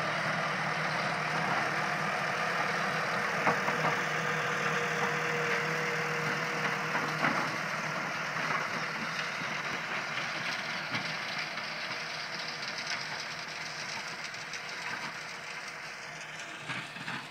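Farm tractor's diesel engine running steadily as it pulls a roller over tilled soil, growing fainter as the tractor drives away.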